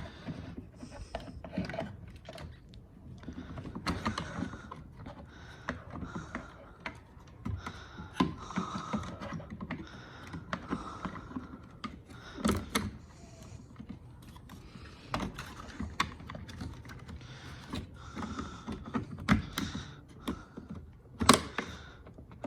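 Plastic parts of a car side-mirror assembly clicking and rattling as they are handled and fitted back together, with a few sharper clicks several seconds apart.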